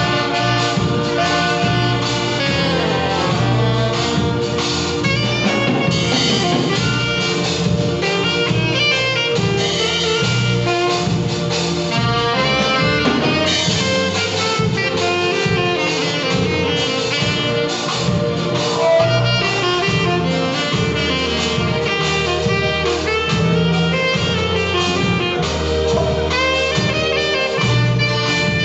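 Several alto saxophones playing a gospel melody together.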